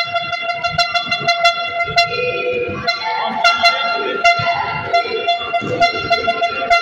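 A steady horn-like tone sounding without a break, over the sharp knocks of a futsal ball being kicked in a sports hall.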